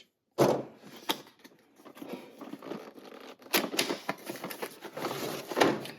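Plastic and cardboard packaging rustling and crinkling as it is pried open by hand, with several sharp clicks and snaps.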